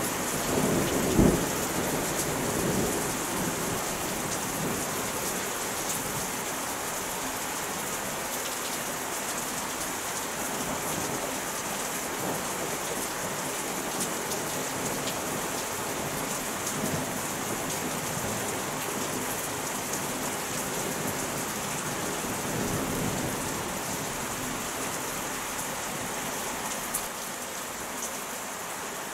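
Steady rain falling in a thunderstorm, with a loud rumble of thunder about a second in and a fainter rumble about twenty seconds later.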